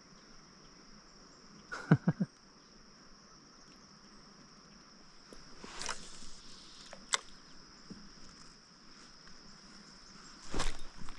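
Steady, high-pitched chirring of insects, with three sharp knocks close together about two seconds in, another single knock a few seconds later, and a brief louder noisy burst near the end.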